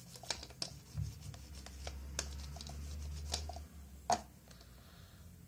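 Hands handling nail-stamping tools: soft rubbing and scattered small clicks, with a low rumble for a couple of seconds and one sharper knock about four seconds in.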